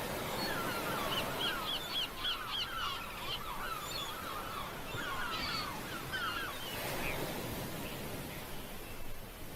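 Birds calling in quick, repeated chirps over a steady background hiss, the calls thinning out about seven seconds in.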